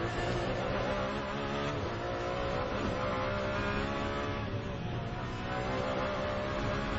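Ferrari 599XX's V12 engine running hard, its pitch climbing through a gear and then shifting about four and a half seconds in.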